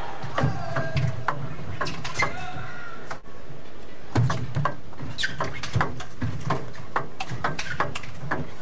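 Table tennis rally: a celluloid ball clicking sharply off bats and the table at a quick, irregular pace over a steady arena crowd hum. A few voices call out from the crowd in the first three seconds, before the rally.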